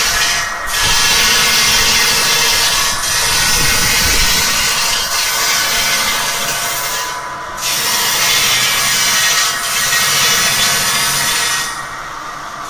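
The large circular blade of a motor-driven gantry bridge saw grinding through a row of granite blocks: a loud, steady, high-pitched grinding hiss that briefly drops off three times, about half a second in, around seven seconds in, and near the end.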